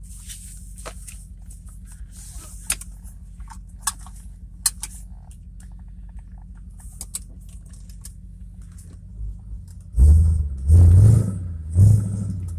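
Inside the cabin of an AU II Falcon XR8 on a gravel road: a steady low drone from its 5.0 L Windsor V8 and tyres, with sharp ticks of gravel stones flicking against the car. About ten seconds in come three loud low surges in quick succession.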